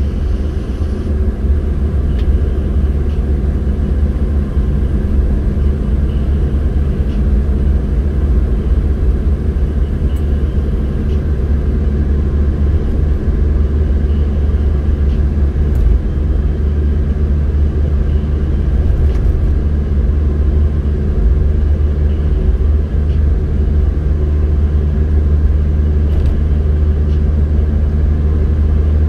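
Steady low rumble of a car on the move: road and engine noise, unchanging throughout.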